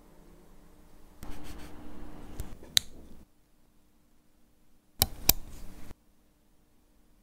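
Steel watchmaker's tweezers scraping and clicking against the parts of a water-damaged Longines watch movement as it is taken apart. A stretch of close scraping with a couple of sharp ticks comes first, then a pause, then two sharp metallic clicks a fraction of a second apart.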